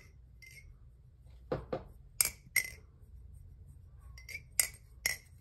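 Aluminium-handled balisong being flipped and handled: sharp metallic clacks and clinks as the handles swing against each other and the blade. The clacks come in two groups, a few in the first half and a quicker cluster near the end.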